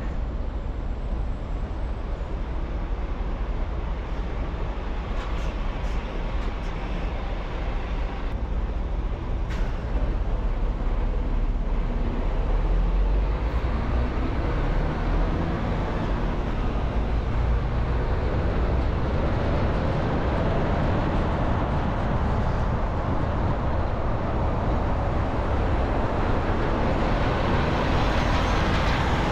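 A car driving on city streets: steady engine rumble and tyre-on-road noise. It grows louder about a third of the way in, and the hiss brightens over the last two thirds. A few faint clicks sound in the first third.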